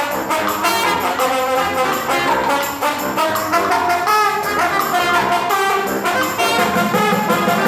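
Live brass band playing: trombone, trumpet and saxophone over bucket drums keeping a steady beat.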